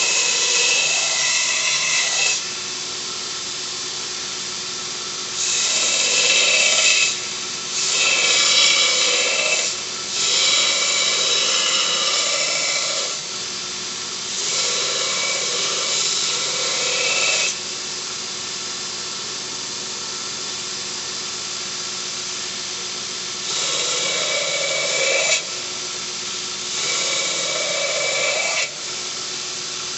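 Homemade 2x42 belt sander, running on skateboard wheels, runs steadily while metal is pressed against the belt in about seven grinding passes of one to three seconds each, grinding bevels into the piece.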